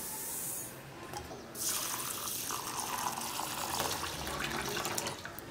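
Ragi (finger millet) grains pour into a glass bowl with a brief hiss. Then, from about a second and a half in, water is poured from a jug onto the grains in the bowl, a steady splashing rush that stops just before the end.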